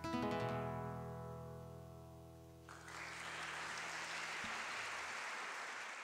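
Closing chord on a classical guitar, strummed once and left to ring, slowly fading. About two and a half seconds in, audience applause starts and holds steady as the last notes die away.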